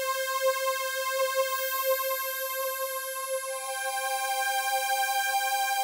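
Arturia Jupiter-8V software synthesizer playing a high string-pad line: one long held note, with a second, higher note joining about three and a half seconds in.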